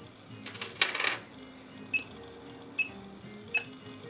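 Keyless-entry controller keypad giving three short, identical high electronic beeps about 0.8 s apart, one for each digit key pressed while a fob's last four digits are entered. A brief rustle of handling comes just before them, about half a second in.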